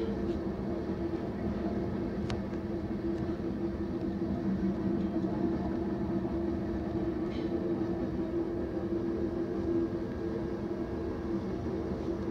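BNSF manifest freight train passing: a steady rumble with a low, even drone.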